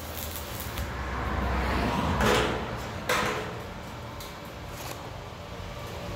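Stick-welding arc crackling, which cuts out about a second in. It is followed by a swelling scrape, then a single sharp knock about three seconds in.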